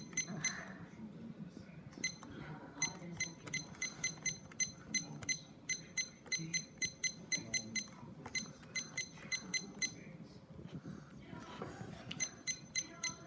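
Taylor digital cooking timer-thermometer beeping once for each press of its hour and minute buttons as the time is stepped up: runs of short, high beeps, about four a second, with a pause of a couple of seconds before a last run near the end.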